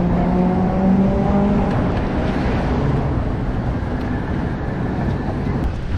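Street traffic: a motor vehicle's engine hum, clearest in the first second or two, over a steady rumble of road noise.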